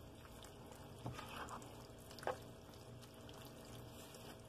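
Spatula stirring cream into a ground beef and spinach filling in a pan: faint wet squelching, with a light knock a little over two seconds in.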